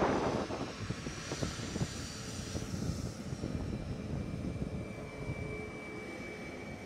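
Boeing 737 airliner taxiing at low power: its jet engines give a steady rumble, and a faint high whine comes in about halfway through.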